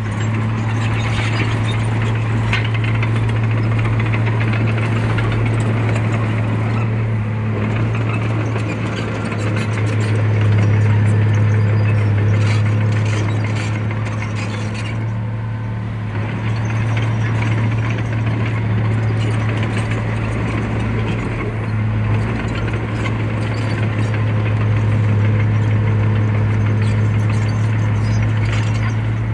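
Heavy diesel construction machine engine running steadily under load, a low drone with a broad mechanical rumble and scattered light knocks.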